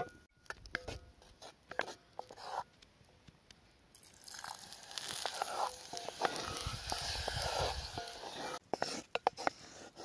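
Chocolate and butter heating in a cast-iron pot, with scattered light crackles and clicks. From about four seconds in comes a steady sizzling hiss with scraping as a wooden spoon stirs the melting chocolate. A few sharp clicks come near the end.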